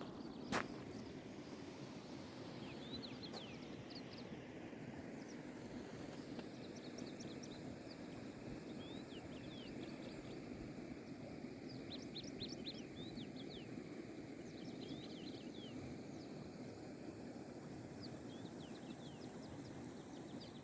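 Steady low rush of a mountain river flowing. A small bird calls above it in several bouts of quick, high chirps. A single sharp knock comes about half a second in.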